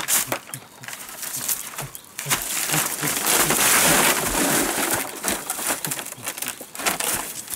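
Dry fan-palm leaf and fern fronds rustling and crackling as they are trampled and dragged over the ground, with a louder, denser stretch of rustling from about two to five seconds in.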